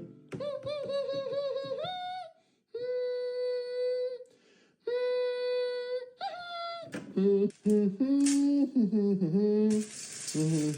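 A voice holding long hummed or sung notes: first a wavering note, then two long steady ones, then a lower line moving in steps like a tune. A hiss comes in near the end.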